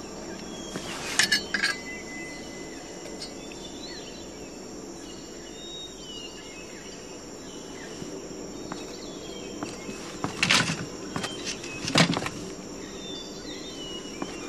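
Outdoor ambience of insects chirring steadily, with occasional short bird chirps. A few brief clinks and knocks sound about a second in and again about ten and twelve seconds in.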